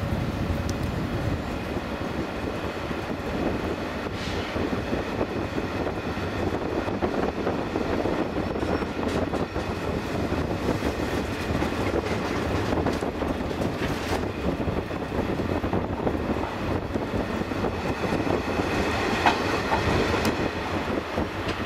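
Sleeper train carriage rolling slowly out of a station, heard from inside: a steady rumble of wheels on the rails, with a few faint clicks.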